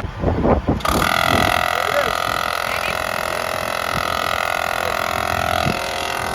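Smittybilt 12-volt air compressor switching on about a second in and running steadily with a whining motor hum, powered from the truck battery through a quick-connect extension and toggle switch.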